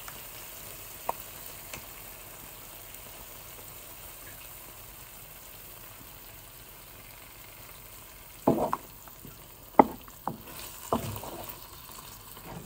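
Onions with garlic and ginger frying in a pan, a steady low sizzle. In the last few seconds come several sharp knocks and clatters.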